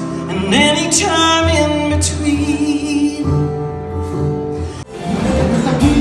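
A woman singing a slow ballad to acoustic guitar, ending on a long held note. Just before the end it cuts abruptly to a Latin band playing with saxophone and percussion.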